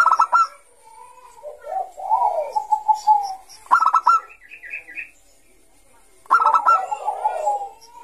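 Zebra dove (Bangkok-type perkutut) singing: each phrase a quick run of clipped notes followed by a lower, wavering coo, heard three times, with a short pause just past the middle.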